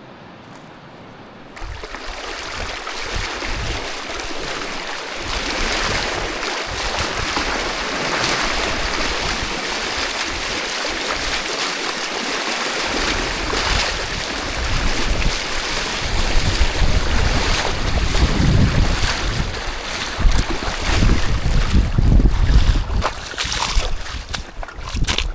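Rushing water of a mountain river or waterfall, a steady hiss that starts suddenly just after the start and grows slowly louder. From about halfway, gusts of wind buffet the microphone with a low rumble.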